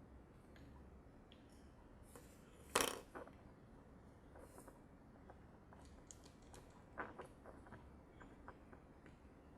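Faint clicks and taps of small hard parts being handled, with one sharper clack about three seconds in and a few more clicks around seven seconds in.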